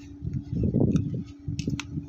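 Handling noise: low rumbling bumps and a few light clicks as the glued cardboard matchboxes and hot glue gun are moved about, over a steady low hum.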